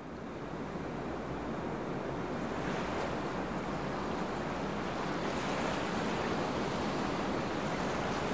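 Ocean surf washing on a beach: a steady wash of wave noise that grows slowly louder as it fades in.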